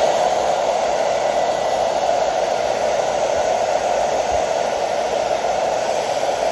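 Hand-held hair dryer running steadily, blowing hot air over thin plastic panels to soften them for bending.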